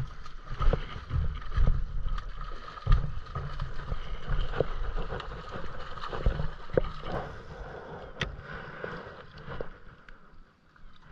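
Wind buffeting the microphone in low gusts, over splashing from a hooked salmon thrashing at the water's surface beside the rocks, with scattered sharp clicks. The sound fades quieter near the end.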